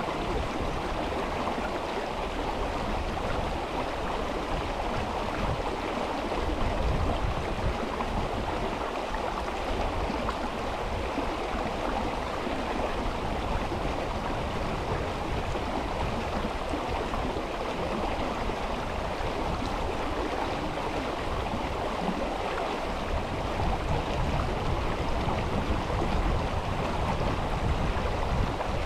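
River water rushing and babbling steadily over stones.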